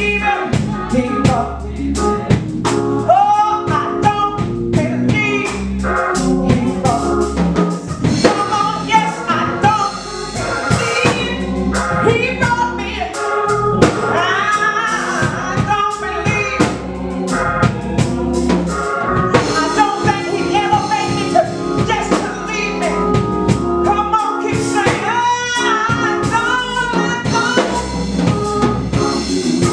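A woman singing a gospel song through a microphone, backed by instruments and drums with a steady beat.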